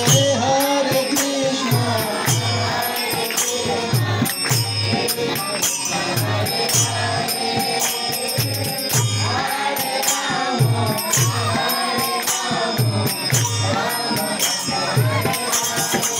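Devotional kirtan: a man sings a melody into a microphone over a drum beating about twice a second, with small hand cymbals clashing in time.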